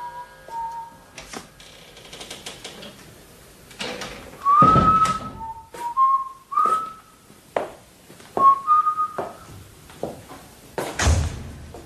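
A person whistling a short tune of sliding notes, broken up by knocks and clicks, with a heavy thump about four and a half seconds in and another near the end.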